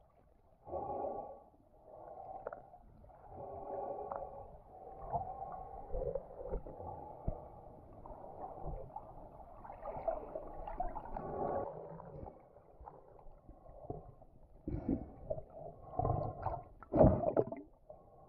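Muffled water sloshing and gurgling around a camera under or at the water's surface while diving. It comes in irregular surges, with the sharpest, loudest ones near the end.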